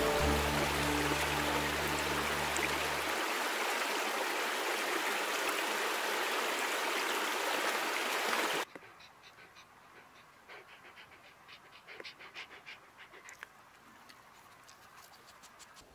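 Steady rushing of a stream, with low background music notes ending about three seconds in. Near nine seconds the rushing cuts off abruptly, leaving faint scattered clicks and ticks.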